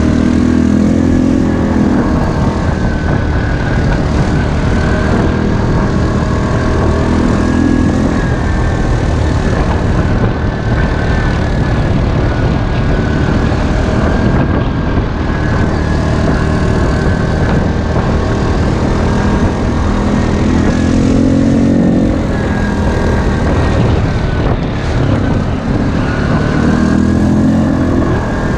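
ATV engines running under way off-road, steady and loud, with the revs swelling and dropping back a few times.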